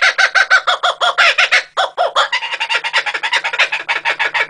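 Laughing kookaburra calling: a fast run of short, repeated notes with a brief break nearly two seconds in.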